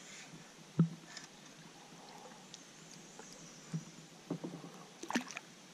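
Knocks and handling sounds on a plastic kayak as a small bass is reeled in and lifted aboard on a drop-shot rig: one sharp knock about a second in, then a few lighter knocks and rattles near the end.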